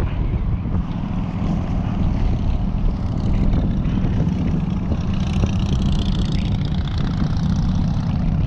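Strong wind buffeting the microphone: a loud, continuous rumble with gusty flutter.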